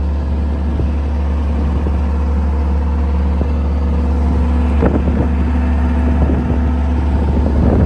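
Case CX135SR excavator's diesel engine running steadily just after start-up. A couple of brief knocks come through over it about five seconds in and again near the end.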